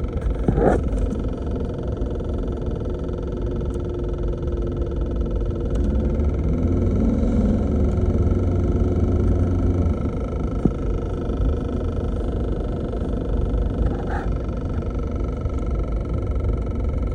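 Mercedes-Benz W203 C-Class being driven: a steady low rumble from road and engine, with a few short knocks about a second in and again near the end. The owner reports a rattle that changes with road speed but not with engine revs.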